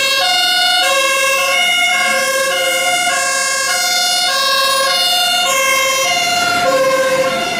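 Fire engine siren sounding a two-tone hi-lo call: a loud, buzzy tone that alternates steadily between a higher and a lower note, each held about half a second.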